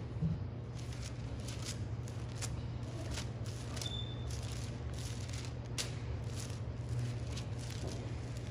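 Bible pages being leafed through: a string of quick paper rustles and flicks, irregular, over a steady low hum.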